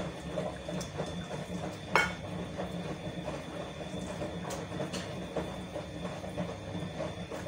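Light taps and clinks of a measuring spoon and raw pork chops being handled on a plate while salt is spooned over the meat, with one sharper click about two seconds in, over a steady background hum.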